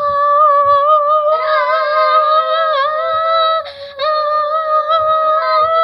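A girl's voice holding one long, high note on an open vowel. She breaks off once for a quick breath in, at about three and a half seconds, then takes up the same note again.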